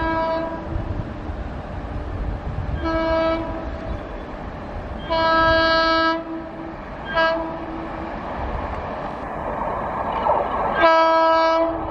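WAP-7 electric locomotive sounding its horn in five blasts: short ones at the start and about three seconds in, a longer one about five seconds in, a quick one, and a last one near the end. Between the blasts there is a low rumble, and the rumble of the approaching train grows towards the end.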